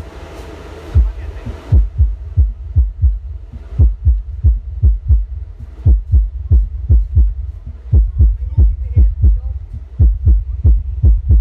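Outdoor-cinema sound system's subwoofers playing a bass test track: a steady, fast string of deep bass thumps, about three a second. A hiss over the top lasts through the first second and a half.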